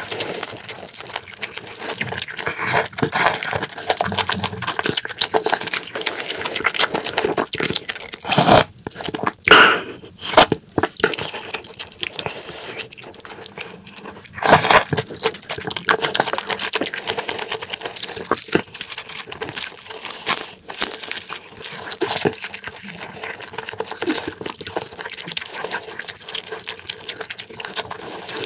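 Close-miked eating: wet chewing and smacking of mouthfuls, with a few loud slurps about eight to eleven seconds in and again around fifteen seconds, as beef and radish soup with bean sprouts is slurped off the chopsticks.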